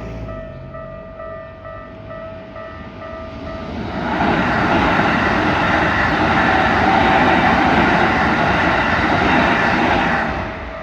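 Level crossing warning bells ringing in a steady pulsing pattern. About four seconds in, a train runs over the crossing with a loud rumble of wheels on rail that drowns the bells for about six seconds, then drops away shortly before the end while the bells keep ringing.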